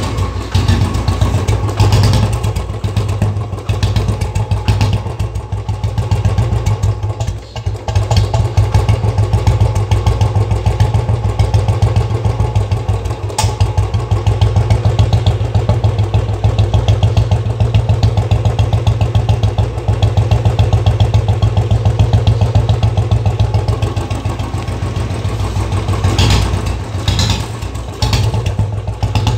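Royal Enfield Bullet Standard 350's single-cylinder engine running through a Mini Punjab aftermarket silencer, giving the steady, evenly paced 'dug dug' exhaust thump, dipping briefly about seven seconds in.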